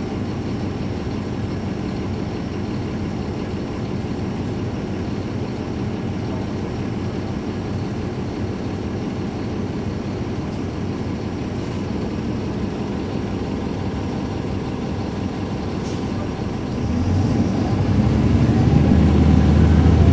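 Caterpillar C13 diesel engine of a 2009 NABI 416.15 transit bus, heard from inside the bus, running steadily with its engine cooling fans on. About 17 seconds in the engine gets louder and heavier as it takes up load.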